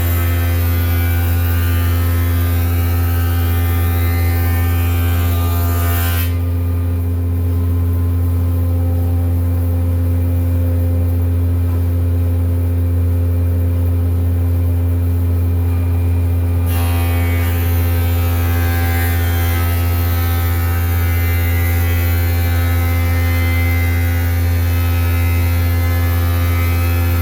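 Wood planer's motor running steadily with a strong low hum while planing white oak boards fed on edge. The high-pitched cutting noise stops about six seconds in, leaving the motor running on its own, and returns about ten seconds later as the next board goes through.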